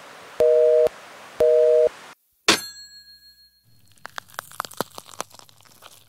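Telephone busy signal: a two-tone beep, half a second on and half a second off, heard twice before it cuts off. A single sharp click with a short ringing follows, then irregular crackling clicks over a low hum.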